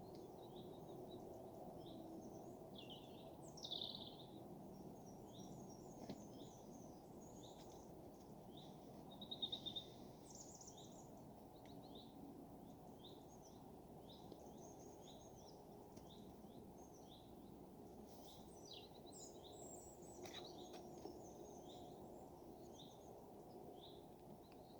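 Faint songbird chirps and trills, many short calls following one after another, over a low steady background rumble.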